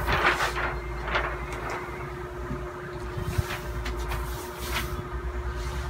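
Large paper posters rustling and crinkling in several bursts as one sheet is lifted away and the poster beneath is smoothed flat. A steady faint hum runs underneath.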